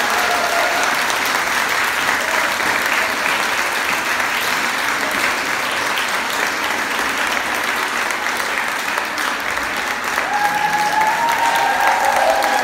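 Applause from a hall full of people after a choir's song: steady clapping throughout, with a few voices rising over it from about ten seconds in.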